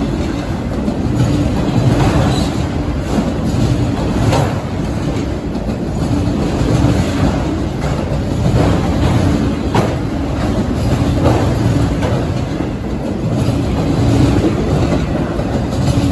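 Autorack freight cars rolling past close by: a steady rumble of steel wheels on rail, swelling and easing every couple of seconds, with a few short sharp clacks.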